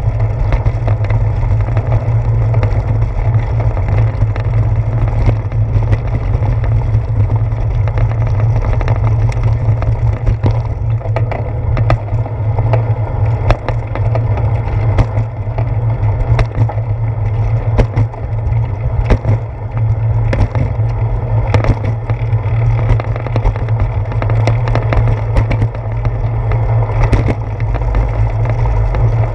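Steady low rumble and rattle of a bicycle rolling over brick pavement and sidewalk, transmitted through a seat-post-mounted GoPro, with many sharp knocks from bumps and pavement joints.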